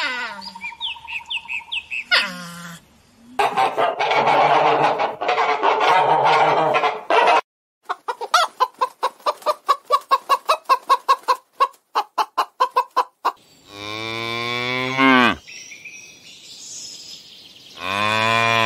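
Domestic hens clucking in a quick run of about four clucks a second, then cattle mooing: one long moo, and a second starting near the end. Before the clucking come squeaky calls and a stretch of noisy animal sound.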